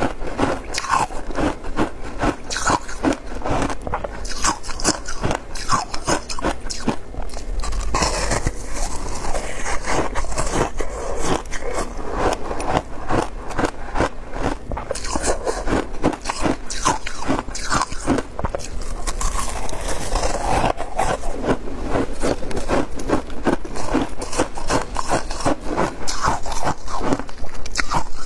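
Close-miked shaved ice crunching and crackling in a dense, continuous run of small crunches as it is bitten and chewed, and squeezed in a gloved hand in a bowl of passion fruit juice.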